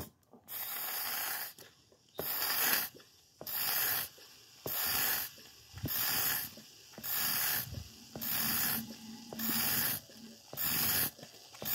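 Hand-pumped fluid extractor working in steady strokes, about one every second and a quarter, each a raspy hiss of air and liquid drawn through the pump. It is sucking out old fuel contaminated with water.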